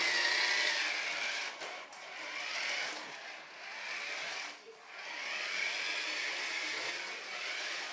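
Toy RC car's small electric motor whirring as the car drives and spins, speeding up and easing off, with a brief drop about four and a half seconds in.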